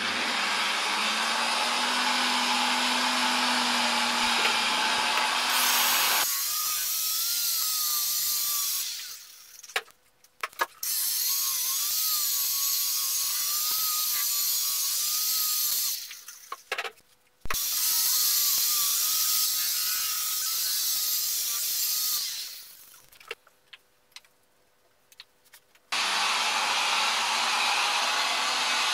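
Electric rotary polisher running with its pad pressed on a cured epoxy tabletop: a steady whirring hiss with a motor whine that wavers in pitch as the pad is worked. It breaks off three times, briefly, then for about three seconds near the end, before running again.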